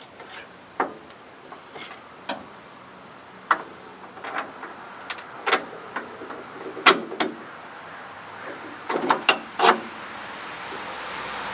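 Irregular sharp metal clicks and knocks from hand work on a sawmill's blade-tensioning hardware, a screwdriver and bolt being worked to line up the holes, with a quick run of knocks near the end. A steady rushing noise swells in the last second or two.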